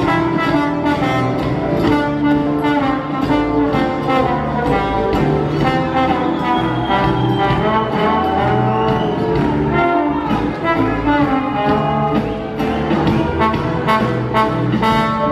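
Live band playing an instrumental passage of the song, a trombone playing the lead line over a steady drum beat with bass and guitar.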